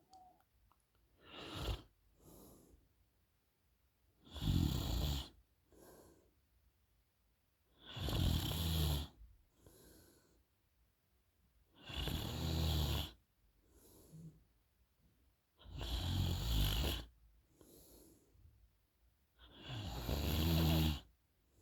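A sleeping young woman snoring, with a loud snore on each breath in about every four seconds and a softer breath out between them.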